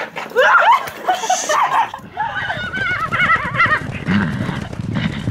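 Horse whinnying: a long neigh with rising squeals that then wavers rapidly up and down, followed by lower, rougher sounds near the end.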